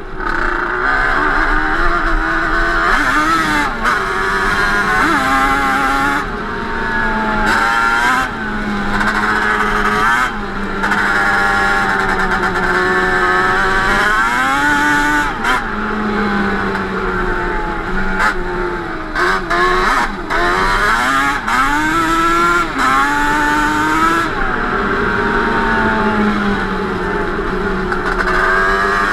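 Yamaha Banshee 350's twin-cylinder two-stroke engine, on Toomey T5 expansion-chamber pipes, running under riding load. It revs up and down over and over, with short lifts off the throttle between climbs.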